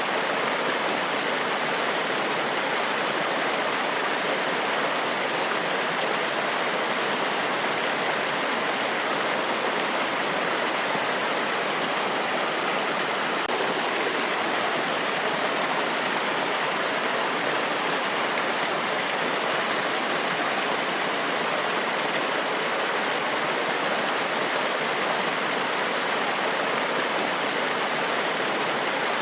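Forest waterfall: water pouring over rocks with a steady, even rush that does not change.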